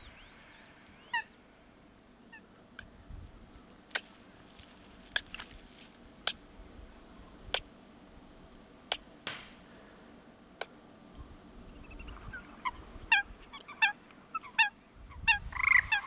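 Eurasian coots calling: short, sharp single calls about every second or so, then a quicker run of calls near the end.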